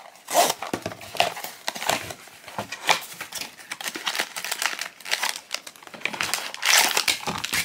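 A small paperboard blind box being opened by hand, its flaps pulled open, with crinkling and rustling of the packaging in many short crackles that grow denser and louder near the end.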